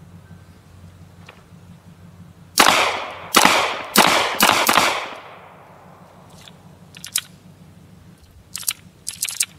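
Five rapid shots from a Smith & Wesson M&P Shield 9mm pistol, fired in about two seconds, each followed by a short echo. A few faint clicks follow.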